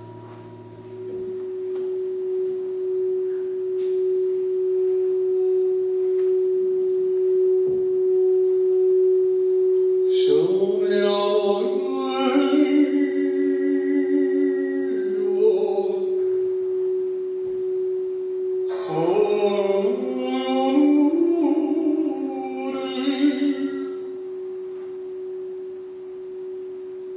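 A singing bowl rubbed around its rim with a wooden stick gives one steady ringing tone that starts about a second in and holds on. About ten seconds in, and again near twenty, a voice sings a long wordless chant phrase over it, each phrase opening with an upward slide.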